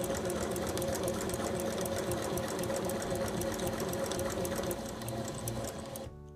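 Electric sewing machine running steadily, a steady motor hum under a fast, even ticking of the needle as it sews a straight stitch through fabric. It quietens about five seconds in and cuts off abruptly just before the end.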